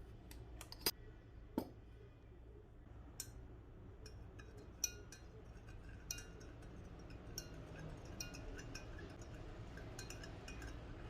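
Light clinking of glass and other hard objects: two sharper knocks in the first two seconds, then scattered small clicks and ticks.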